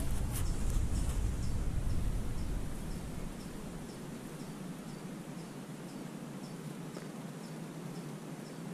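Low rumble of a hand knocking and moving the camera for about the first three seconds, then steady outdoor ambience with an insect chirping regularly, about two short chirps a second.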